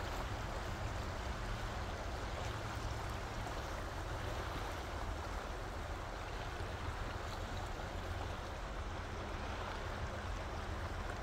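Glacier-fed river rushing steadily, a continuous even wash of flowing water.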